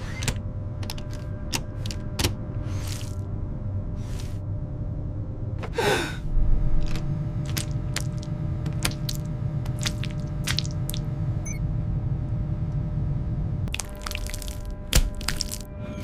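Cartoon sound effects of a hand wiping sticky goo across a helmet visor: scattered short clicks and a few brief smeary wiping noises over a steady low cockpit hum. The hum drops away near the end, and a sharp knock follows shortly after.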